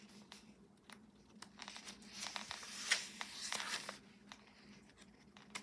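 Paper and cardstock pages of a handmade junk journal being turned by hand: a soft rustle and crinkle with small clicks, starting about a second and a half in and dying away about four seconds in.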